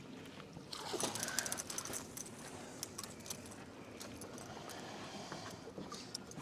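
Light, irregular clicking and rattling of fishing gear being handled, lasting about three seconds from just under a second in, over faint background hiss.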